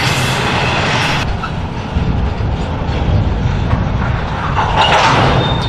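Freight cars rolling past on the rails, wheels clacking over the joints. About a second in the sound changes abruptly to a lower, duller rumble of a second train of steel-coil flatcars rolling by, which swells briefly near the end.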